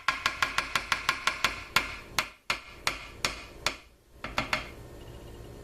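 A quick run of sharp knocks and taps of a utensil against a dish, about five a second at first and then slowing and stopping, each with a short ring, as butter is cut and added to the pan.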